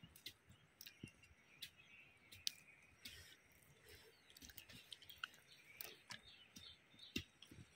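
Near silence, with faint scattered clicks and a few faint high chirps.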